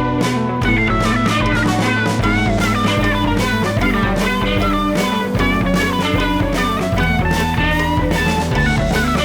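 Background rock music with electric guitar and drums and a steady beat.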